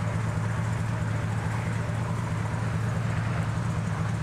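Steady low engine hum of an idling vehicle, with an even haze of road noise over it.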